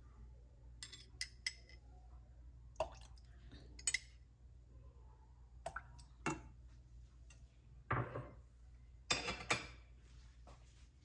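Kitchen utensils and dishes clinking and knocking together in short, irregular strikes, about ten in all, loudest a few seconds in and again near the end.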